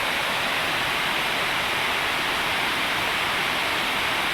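Waterfall rushing steadily: an even wash of falling water that does not change.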